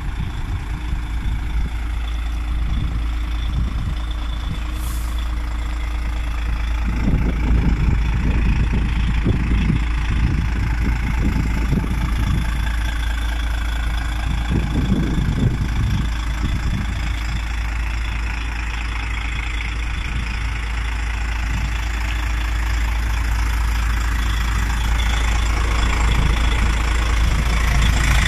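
DAF XF 105.410's 12.9-litre PACCAR MX straight-six diesel idling steadily.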